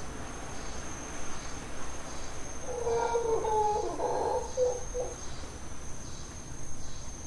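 Insects trilling: a steady high-pitched trill with fainter chirps repeating at a regular pace. From about three to five seconds in, an animal call of several short, low pitched notes rises over it.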